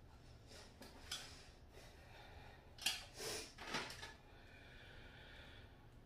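Faint clatter and rustle of small objects being handled, a few brief bursts in the first four seconds, followed by a soft hiss lasting about a second and a half.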